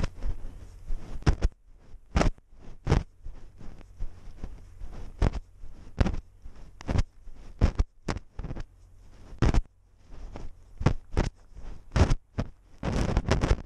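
Irregular knocks and scrapes from a GoPro strapped to a walking cat, the camera bumping and rubbing against its body and fur with its steps. There is a longer stretch of scraping and rustling near the end.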